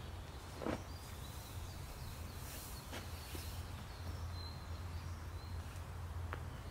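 Outdoor woodland ambience: a steady low rumble with a few faint, short, high bird chirps, and a single thump just under a second in.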